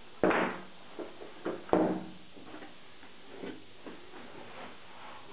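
Footsteps going down a staircase: a few irregular knocks, each ringing briefly, the loudest near the start and just before two seconds in.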